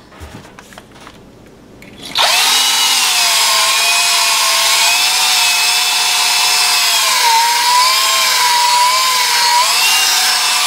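Electric drill boring a hole into a solid brass bullet. After a couple of quiet seconds with a few small handling clicks, it starts about two seconds in and runs steadily with a loud whine that wavers up and down in pitch.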